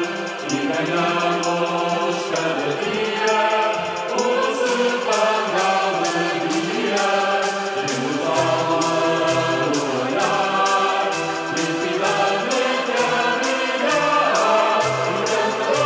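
Music: a choir singing over a steady beat of about two strokes a second, which comes through more sharply about four and a half seconds in.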